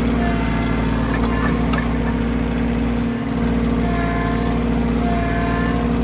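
Tractor engine running steadily, with a thinner, higher whine coming and going over it.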